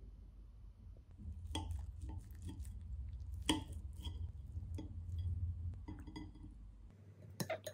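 Metal knife and fork cutting into a soft oatmeal cake, with several sharp taps and scrapes of the cutlery against the ceramic plate; the loudest comes about halfway through, and there is a quick pair near the end. A low steady hum lies underneath and stops suddenly near the end.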